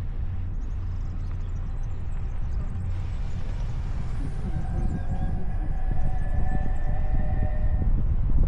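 Car driving, with wind buffeting the microphone and a steady low rumble of road and engine noise. Faint steady tones come in through the middle of the stretch and fade before the end.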